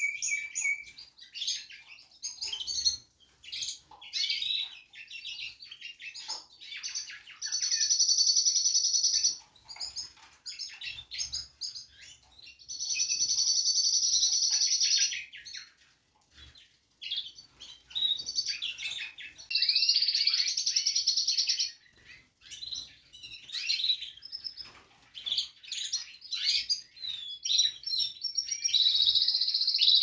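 A flock of caged canaries and other small birds chirping all at once, with several long trilled canary song phrases of two to three seconds each standing out above the twittering.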